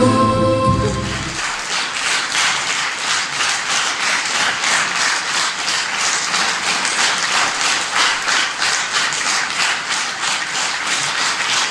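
The last notes of music stop about a second in, then an audience applauds steadily.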